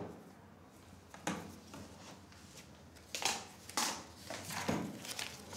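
Paper banknotes being counted by hand: a few brief, crisp rustles of the bills about a second apart, over quiet room tone.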